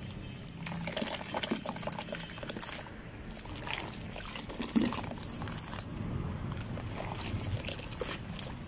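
Hands stirring and squeezing wet sand in a basin of muddy water: sloshing and trickling with irregular small splashes and crackles.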